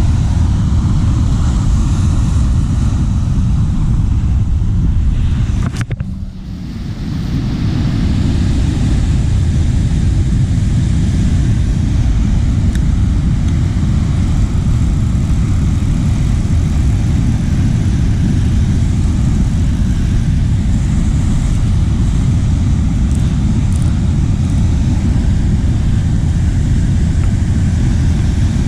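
Strong wind buffeting the microphone, a steady low rumble with no voices. About six seconds in it drops away briefly after a click, then builds back.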